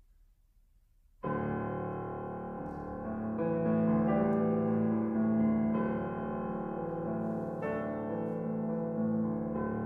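Grand piano playing the solo opening of a piece for cello and piano, coming in suddenly about a second in and carrying on with full, sustained chords. The cello does not play.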